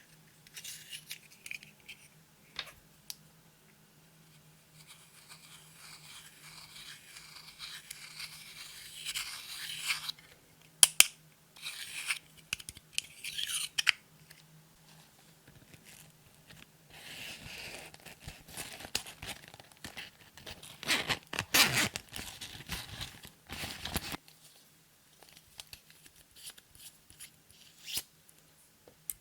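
Close-up handling of clear slime with makeup and glitter: irregular scraping, crackling and squishing in bursts, with a few sharp clicks, loudest a little past the middle.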